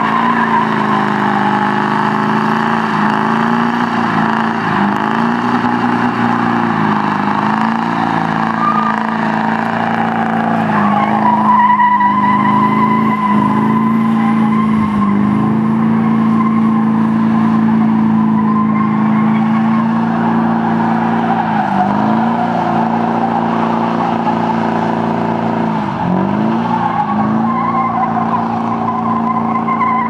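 Ford F-series pickup doing a long burnout: the engine is held at high revs, dipping briefly and recovering every few seconds as the rear tires spin against the pavement. From about eleven seconds in, a steady tire squeal joins the engine.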